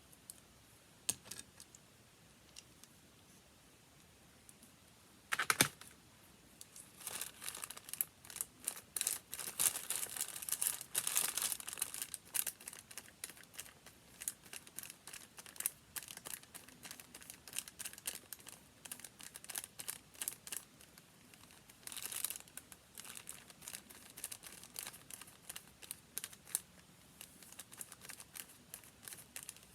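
Paper being handled: crinkling and crackling with many small ticks, densest a few seconds in and with a short loud crackle before that and another later.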